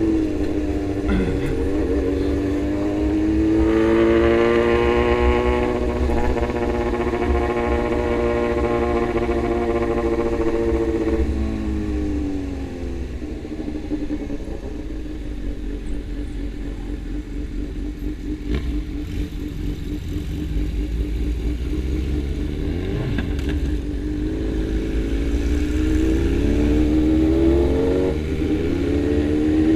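Honda Hornet motorcycle engine under way: the revs climb a few seconds in, hold high, fall back to a lower steady cruise, and climb again near the end, over a steady low rumble.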